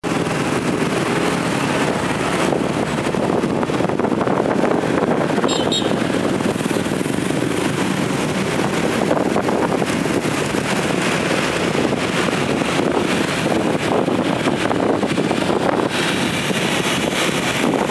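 Street traffic of motorbikes, scooters and cars, heard from among the moving traffic as a steady engine and tyre noise mixed with wind rushing on the microphone. A brief high-pitched sound cuts through about five and a half seconds in.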